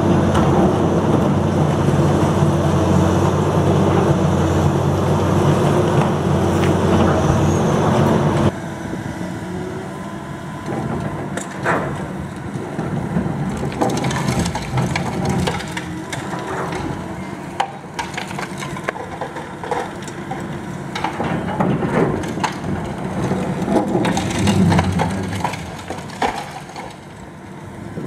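Liebherr R954C high-reach demolition excavator: its diesel engine runs loudly and steadily, then stops abruptly about eight seconds in. After that come irregular cracking and crunching of concrete as the crusher attachment bites into the building, with scattered sharp snaps over the fainter engine.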